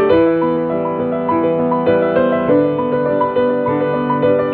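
Solo piano music, a steady run of notes.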